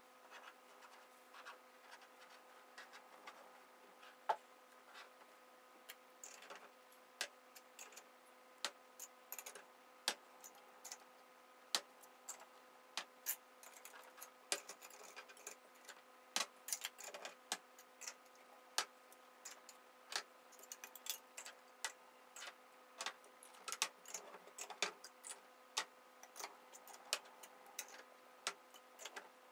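Filled glass jars and their lids being handled and closed: irregular light clicks and clinks, a few a second, over a faint steady hum.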